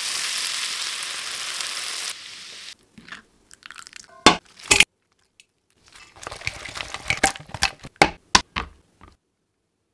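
Hot oil sizzling as it is poured over chilli flakes, chopped garlic and butter, stopping abruptly about two seconds in. Scattered clicks and taps follow, with two sharp strikes past the middle and a cluster near the end.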